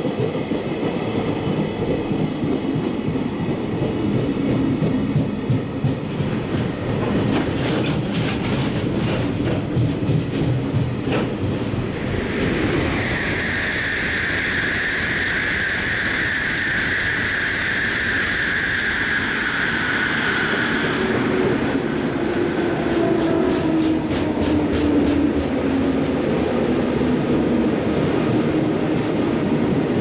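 Container freight train rolling past, its wagon wheels clattering over the rail joints, with a high steady squeal lasting several seconds midway. Near the end a 211 series electric train pulls in, its motor tone falling as it slows.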